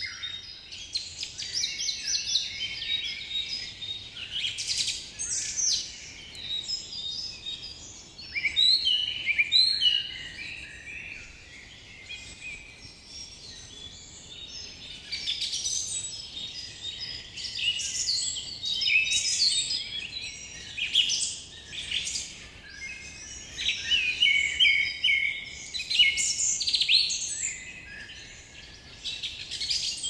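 Several birds singing and chirping together in a dense chorus of short, overlapping high calls and trills that swell and fade in waves.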